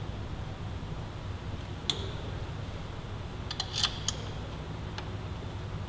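A few sharp small clicks and taps of hand tools and metal fasteners being handled, with a quick run of clicks just past the middle, over a steady low hum.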